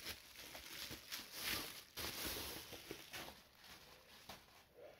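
Plastic bubble wrap crinkling and rustling as a laptop is pulled out of it, dying down after about three seconds.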